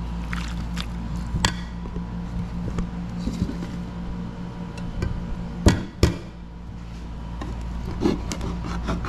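Kitchen clatter: scattered clinks and knocks of utensils and dishes, with two loud knocks close together about six seconds in, over a steady low hum.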